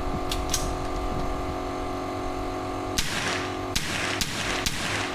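Five rifle shots from a .22 M4-style rifle, fired in quick succession about half a second apart starting about three seconds in, each followed by a short echo.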